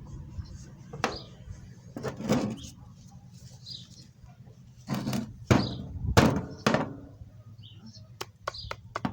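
Separate knocks and clunks of metal parts and tools being handled, the loudest a cluster about five to seven seconds in, followed near the end by a quick run of light clicks. Faint bird chirps behind.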